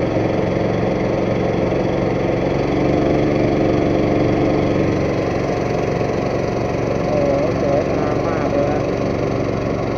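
Boat engine running steadily at cruising speed, a constant rumble with an even drone.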